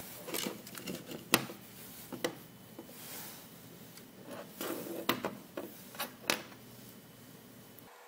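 Hands handling a perfboard circuit board on a tabletop: a series of light, sharp clicks and taps with rubbing between them, the sharpest click about a second and a half in.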